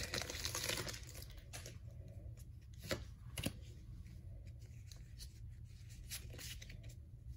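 Faint rustling and tearing of a Pokémon card booster pack being opened, with scattered soft ticks of cards being handled; the two sharpest ticks come about three seconds in.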